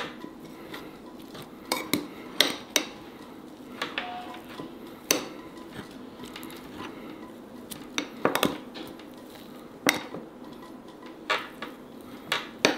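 Metal spoon pounding and mashing dried chili flakes and spices in a glass bowl to make chẩm chéo dipping sauce. Irregular sharp clinks of metal on glass come roughly once a second, with soft scraping and crunching between them.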